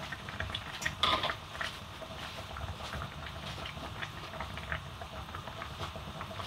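Pot of soup simmering on the stove: many small scattered bubbling pops over a low steady rumble, with one louder knock about a second in.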